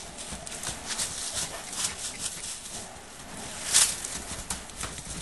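Young horse's hooves crunching in snow as it moves around, irregular crunching steps with one louder sharp crunch a little under four seconds in.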